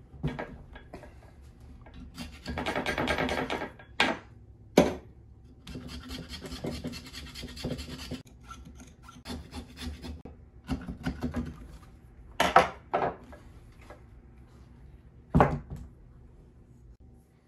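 Hand rasp scraping inside a bowling ball's thumb hole, filing out one side of the hole to oval it, in short runs of strokes with a couple of longer scrapes. A few sharp knocks come between the runs.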